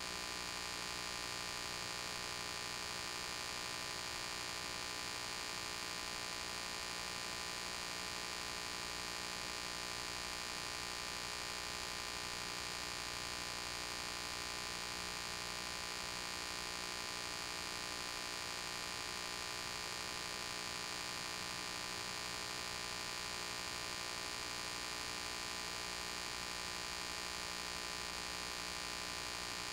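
Steady electrical hum with an even hiss, unchanging and with no other sounds.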